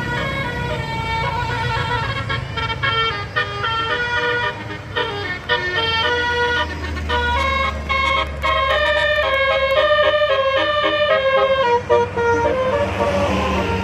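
Multi-tone telolet (basuri) bus horn playing a fast melody of stepped notes over the low running of the engine. A hissing noise rises near the end.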